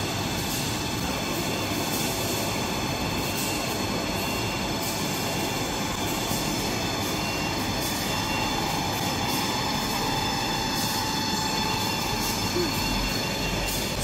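Toilet paper and kitchen towel production line running steadily: a continuous mechanical din of conveyors and rollers carrying paper logs toward the log saw, with a faint steady whine laid over it.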